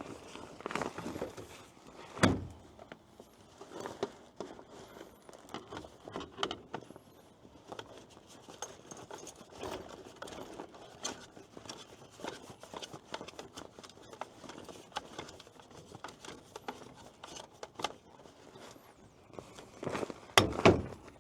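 Handling noise from a folded telescopic tripod light being moved about and packed: scattered clicks, rattles and rustling, with a sharp knock about two seconds in and two more knocks near the end.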